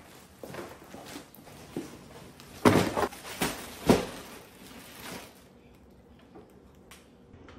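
Shopping bags and a plastic-wrapped pack of paper towels being handled and set down on a counter: a run of knocks and rustles, loudest around three and four seconds in, then quieter.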